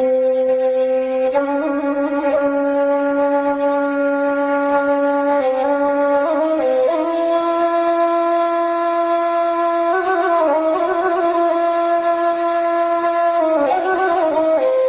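A wind instrument playing a slow melody of long held notes, stepping up or down to each new note every few seconds.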